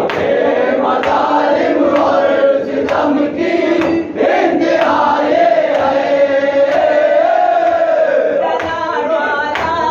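A group of men's voices chanting a noha, a Shia mourning lament, together in one wavering, drawn-out melody, with faint sharp slaps running through it.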